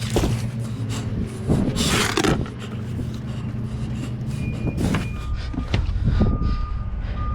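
An engine running steadily with scattered knocks and clatter, and from about five seconds in a vehicle's reversing alarm beeping in a steady repeated tone.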